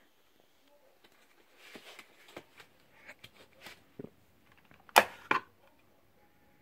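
A pencil sharpener's clear plastic shavings tray being pulled out and handled: scattered small plastic clicks and rattles, then two sharp knocks about five seconds in.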